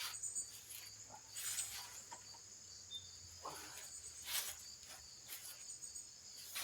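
Crickets chirping steadily in a high, continuous chorus, with a few brief rustling swishes.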